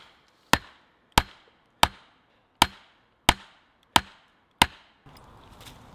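Axe striking a wooden stake: seven sharp blows at an even pace, about one every two-thirds of a second, each with a brief ringing tail. The blows stop about five seconds in.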